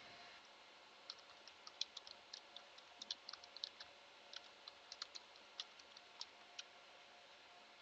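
Faint computer keyboard typing: an irregular run of quick key clicks starting about a second in and stopping about a second before the end.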